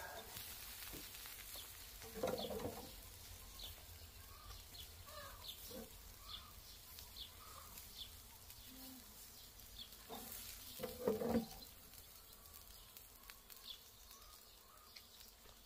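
Small birds chirping faintly with short, high, repeated calls. Two louder brief sounds come in, about two seconds in and about eleven seconds in.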